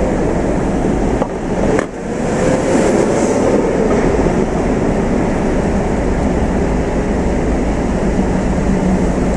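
Steady rumble of road traffic and idling vehicles heard from a car stopped in a queue, with a faint tone that swells and fades a few seconds in. Two short clicks come just before it.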